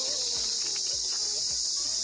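Insects droning steadily in a high-pitched, unbroken chorus, with faint music beneath.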